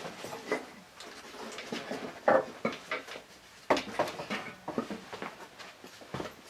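Irregular knocks and clinks of metal tools and engine parts being handled and set down on a workbench during a scooter engine teardown. The two loudest knocks come a little over two seconds in and near the middle.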